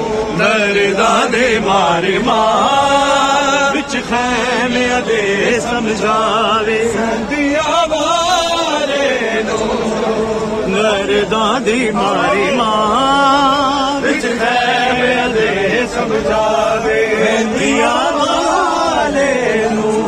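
A Muharram mourning chant (noha), sung melodically with long, wavering held notes and no break.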